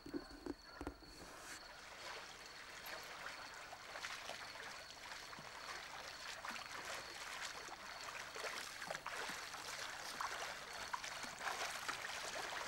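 A swimmer splashing through a swimming pool: continuous churning water with many small splashes from the strokes. A few sharp knocks come in the first second.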